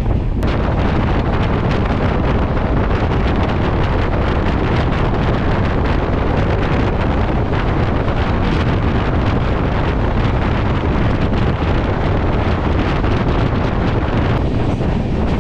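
Heavy wind buffeting the microphone held out of a fast-moving passenger train, over the steady running noise of the train.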